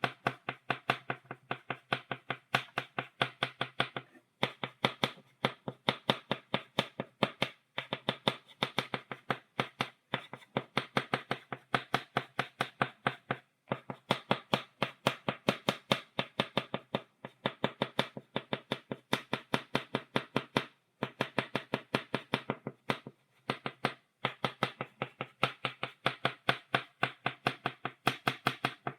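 Chalk tapped rapidly against a blackboard to stipple dots: quick runs of sharp taps, several a second, broken by brief pauses every few seconds.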